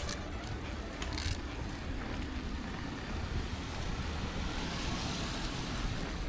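Steady rushing wind noise on the microphone, strongest in the low end, with a few sharp clicks about a second in.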